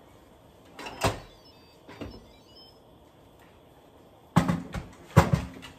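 Stainless-steel Instant Pot lid being twisted open and taken off after a quick release: a sharp clunk about a second in, a fainter knock a second later, then several sharp clunks and knocks near the end.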